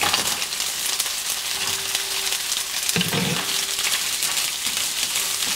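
Chunks of lobster sizzling and crackling in hot oil in a frying pan while chopsticks stir them, with one dull knock about three seconds in.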